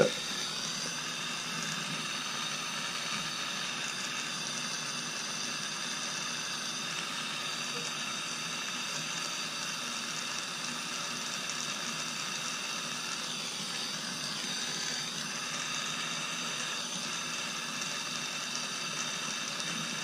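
Gas torch flame hissing steadily as it heats silver beads for soldering.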